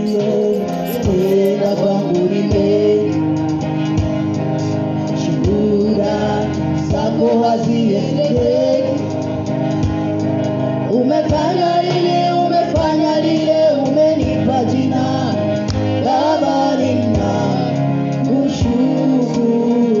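Background music with a singing voice over a steady accompaniment.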